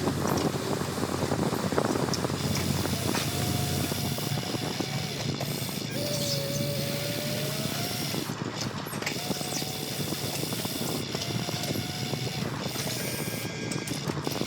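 Radio-controlled excavator running: a steady motor hum with a faint whine that rises and falls slightly, and scattered small clicks and scrapes.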